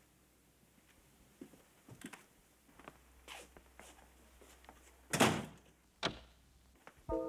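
A few soft footsteps, then a single heavy thump at a wooden, glass-paned door about five seconds in and a sharp latch click under a second later.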